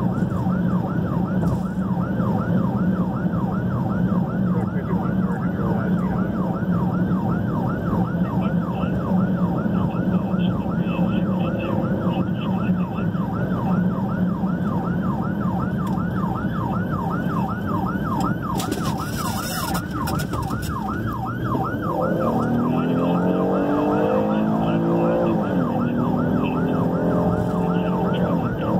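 Emergency vehicle siren on a fast yelp, heard from inside the responding vehicle over a steady engine and road drone. About three-quarters of the way through it gives way to a lower siren tone that rises and falls more slowly.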